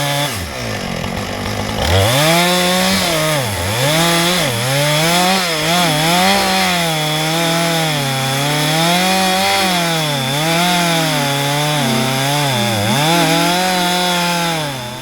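Two-stroke chainsaw driving an Alaskan chainsaw mill through a log. It runs at high revs, its pitch sagging and recovering again and again as the chain loads up in the cut, with a drop in revs near the start that climbs back about two seconds in.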